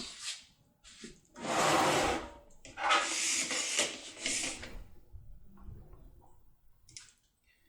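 Two scraping, rubbing sounds about a second long each, from hands and a steel pick tool being worked in a lever safe lock, then a few faint ticks.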